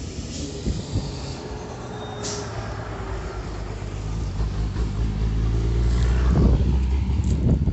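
A heavy road vehicle's engine running nearby, a low rumble that builds and is loudest about six seconds in, with a brief hiss about two seconds in.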